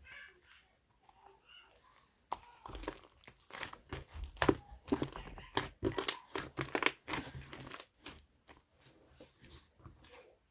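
Pink slime squished and pulled by hand, giving a dense run of crackling, popping clicks from about two seconds in that thins out after about eight seconds.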